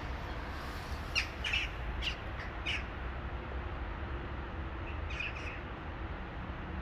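A crow cawing: about four short harsh calls in quick succession a second or so in, then another short burst of calls about five seconds in, over a steady low rumble.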